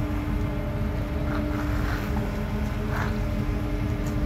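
Car ferry's engines running at the slipway, a steady low rumble with a constant hum, while small waves splash against the ramp a few times.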